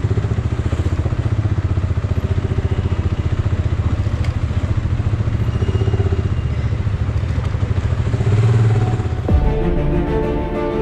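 Motorcycle engine running steadily, heard from on board the bike. About nine seconds in it cuts off abruptly and background music begins.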